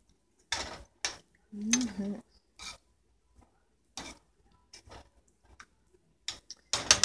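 A spoon stirring thick tomato soup in a stainless steel saucepan, scraping and knocking against the pot in short, irregular strokes.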